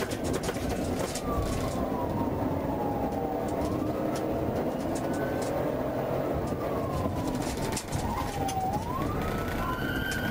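Police siren on a wail setting: a slow tone that falls gradually and then sweeps quickly back up, twice, over steady road and engine rumble heard from inside the patrol car.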